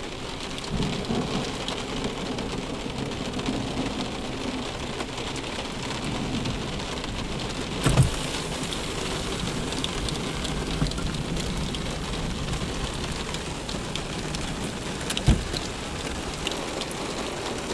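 Heavy rain drumming on a car's roof and windshield, heard from inside the car, with two sharp thumps, one about halfway through and one near the end.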